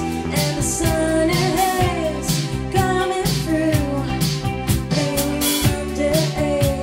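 Live band playing a synth-driven dream-pop song: a woman sings the melody over a drum kit, electric guitar, bass guitar and synthesizer keyboard.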